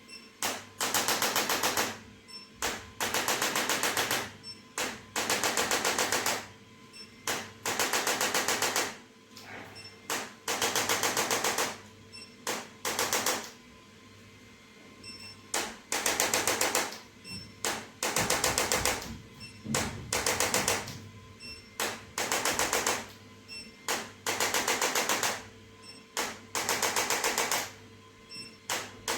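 Handheld electric massager running in repeated bursts of about a second each: a very rapid, even rattling tap, with short pauses between bursts.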